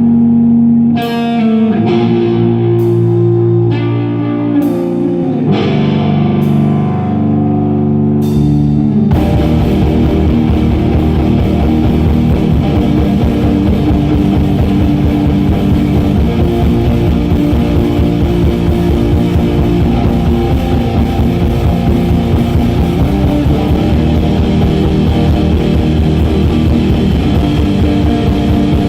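Live instrumental post-metal played by electric guitar and drums: a few separate chords ring out one after another, then about nine seconds in the full band comes in at once, loud and distorted, with the drum kit driving it.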